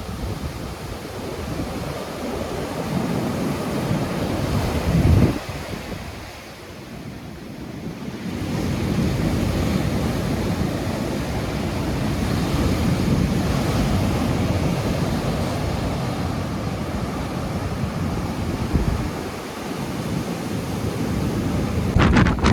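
Storm surf crashing against a sea wall, with strong wind buffeting the microphone. The roar of the waves swells and ebbs, with a loud surge about five seconds in and a lull soon after.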